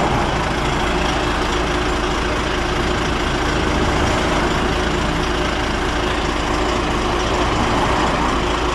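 Heavy truck's diesel engine idling steadily, a constant low hum.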